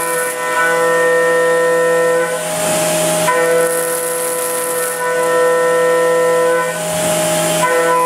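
Haas VF-2SS CNC mill roughing a marker body with an end mill under flood coolant. A steady pitched cutting whine comes and goes with the passes, dropping out briefly about two and a half seconds in and again near seven seconds, over a constant hiss of coolant spray.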